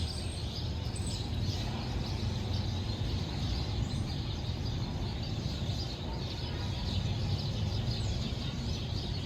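Steady rushing background noise with a few brief, faint high bird chirps scattered through it.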